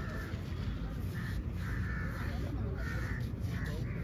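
Crows cawing, about six short caws in a row, over a steady low rumble.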